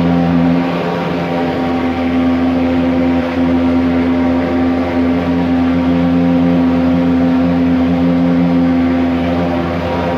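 Portable pulse-jet thermal fogging machine running, a loud steady drone whose pitch holds.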